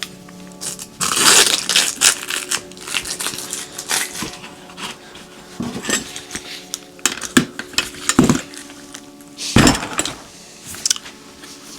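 Metal hand tools clanking and rattling as they are packed into a tool bag: irregular clinks and knocks, a denser run of jangling about a second in and a heavier knock near the end. Soft background music underneath.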